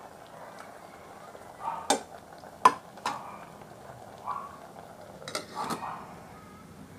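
A spoon clinking against the side of a stainless steel pot as simmering string beans are stirred, about five sharp clinks in uneven succession.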